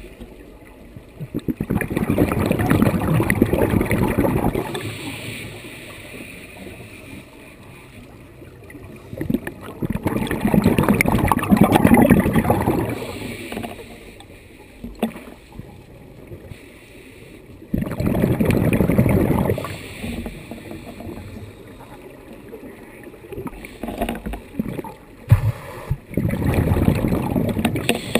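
Scuba diver breathing through a regulator underwater, heard from a head- or hand-held camera housing. Four bursts of exhaled bubbles rush and crackle, each lasting two to three seconds and coming about every eight seconds, with quieter inhalations between.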